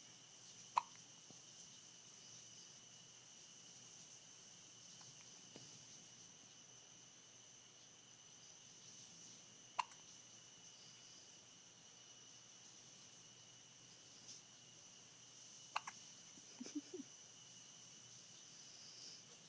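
Hiccups: three short, sharp hiccups spaced several seconds apart, the third quickly followed by a second, with a brief low sound just after. A steady high-pitched hum runs underneath.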